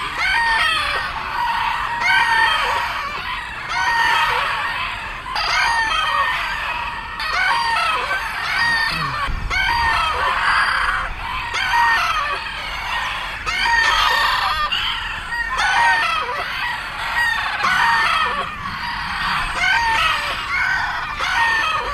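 Many bantam roosters crowing again and again, their calls overlapping almost without a break.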